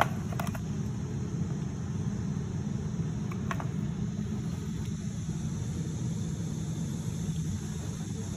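Steady low background rumble, with a few faint light clicks near the start and about three and a half seconds in.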